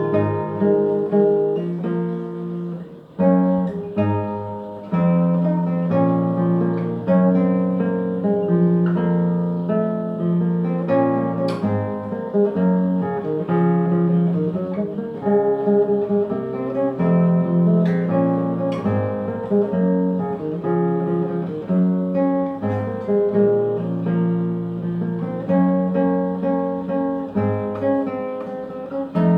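Solo acoustic guitar played fingerstyle, a bass line under a plucked melody, with a few sharp percussive taps on the body of the guitar.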